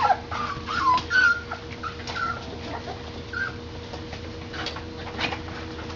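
Six-week-old dachshund puppies whimpering in short, high squeaks, several in the first few seconds, over a faint steady hum.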